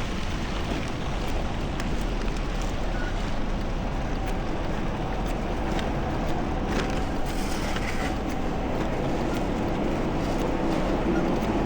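Steady wind and traffic noise from a bicycle ride through snowy city streets, picked up on the rider's chest-mounted action camera. A faint steady hum, like a vehicle engine, comes in about halfway through.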